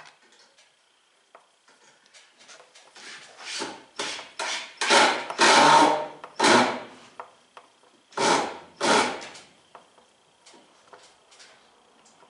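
A screw being turned by hand with a screwdriver into the plastic caster mount of a shop vac base: a run of rasping strokes as the screw cuts its way in, loudest in the middle, thinning to faint ticks near the end.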